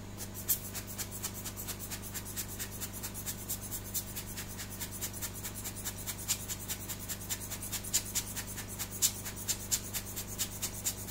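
A hand tool tapping and scraping on a motherboard around a freshly heated surface-mount chip: rapid, fairly regular clicks about four or five a second, over a steady low electrical hum.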